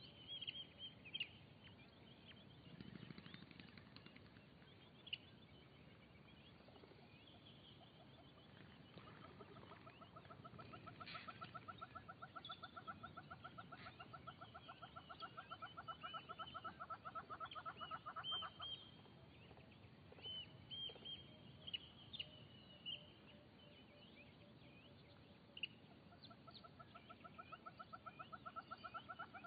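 Faint outdoor wildlife ambience: scattered high bird chirps throughout, and a rapid pulsing trill that starts about a third of the way in, runs for around ten seconds, stops, and starts again near the end.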